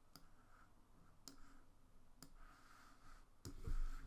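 A few faint, separate computer mouse clicks, about a second apart, with a louder soft thump about three and a half seconds in.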